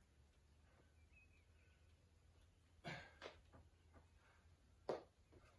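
Near silence, broken by a few short, faint clicks and scrapes from a drytooler's ice tools and crampons on rock as he pulls onto the wall. The sharpest click comes near the end.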